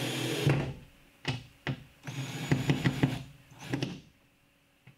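Cordless drill driving Phillips head screws through a metal mounting bracket into the wall. The motor runs steadily and stops about half a second in, then runs again in short uneven spurts with clicks from about one to four seconds in.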